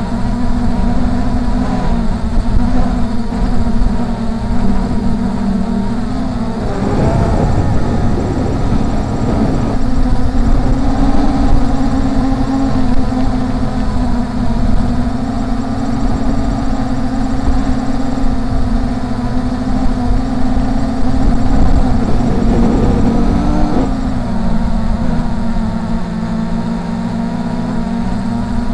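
Brushless motors and propellers of a Force 1 F100 Ghost (MJX Bugs 3) quadcopter humming steadily as heard from the drone itself, with low wind rumble on the microphone. The pitch shifts as the throttle changes, about a quarter of the way in and again about four-fifths of the way in.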